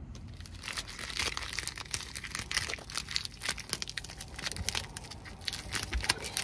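Blue painter's tape being peeled off a window frame and crumpled into a ball in the hand: a dense, continuous run of crinkling crackles.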